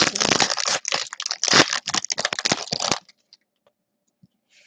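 Foil trading-card pack wrapper crinkling and tearing in the hands for about three seconds, then stopping.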